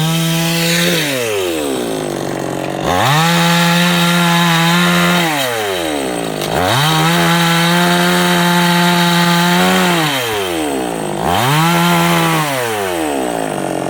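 Chainsaw cutting into ber tree wood, its engine revving up to full throttle and dropping back four times. The holds are short, then about two seconds, about three seconds, and about a second.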